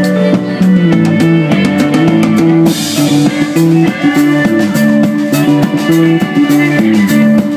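A small band playing live: fiddle, electric guitar, bass and drum kit together, with steady drum strokes and a cymbal crash about three seconds in.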